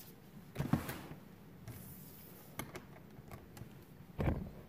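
Handling noise as a metal clip on a sled tow pole is worked onto the sled: a dull thump about half a second in and another near the end, with a few light clicks between.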